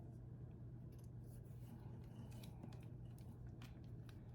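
Faint, scattered small clicks and scrapes of a small screwdriver driving a screw into a plastic model part, over a low steady hum.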